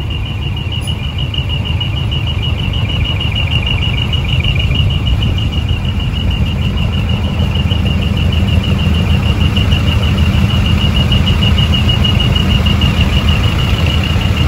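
Heavy truck's diesel engine and road rumble, heard from inside the cab, growing slightly louder. A rapid high-pitched electronic beep pulses several times a second throughout.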